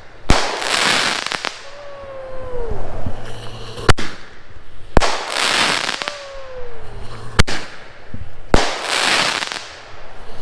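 Consumer aerial firework shells being fired and bursting: sharp bangs in pairs about a second apart, repeating three times, each with a second-long crackling hiss. A falling tone sounds twice between the bangs.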